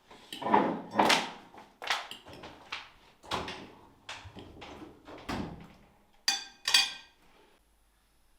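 A string of irregular knocks and thuds, about a dozen in a few seconds, followed by two sharper strikes close together that ring with high overtones near the end.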